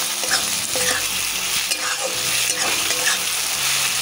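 Onions, garlic paste and small pieces of mutton fat sizzling in hot oil in a kadai, while a spatula stirs and scrapes against the pan every half second or so.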